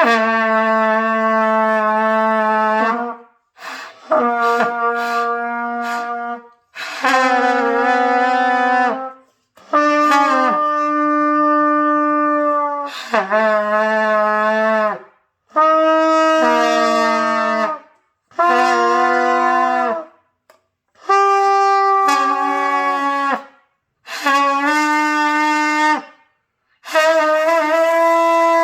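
Trumpet playing a string of about ten long, loud held notes, each two to three seconds with short breaths between, moving between a low note and the ones above it, some stepping up partway through. Beginner long-tone practice of Do-Mi-Sol, blown hard but not yet reaching the higher notes well.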